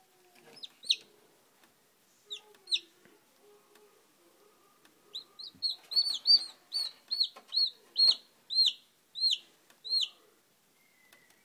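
Newly hatched chicks peeping in short, high calls. A few single peeps come first, then from about five seconds in a quick run of loud peeps, two or three a second.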